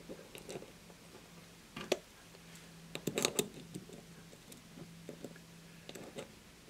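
Light metallic clicks and taps as the steel camshafts of a DM13-1 model engine kit are seated onto its small metal cylinder head. There is one sharp click about two seconds in, a cluster of clicks around three seconds, and a few faint ticks near the end, over a faint steady hum.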